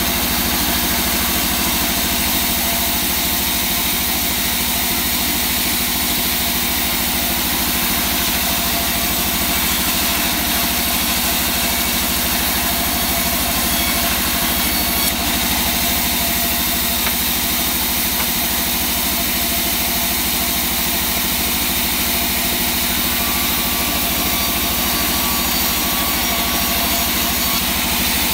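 Large sawmill bandsaw running steadily as a plank of wangkal hardwood is ripped into strips, a constant machine drone with an even hiss of cutting.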